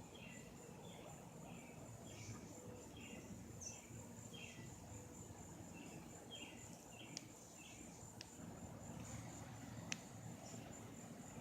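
Faint outdoor insect ambience: a steady high-pitched insect trill with short chirps repeating roughly once a second. Three faint clicks come in the second half.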